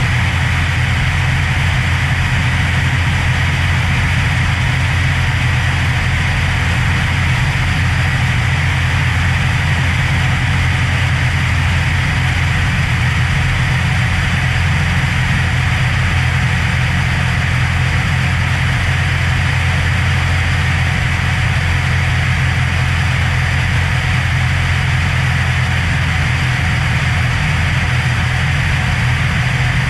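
Cessna Hawk XP II's Continental IO-360 six-cylinder engine and propeller droning steadily in level flight, with wind rushing over the outside-mounted microphone.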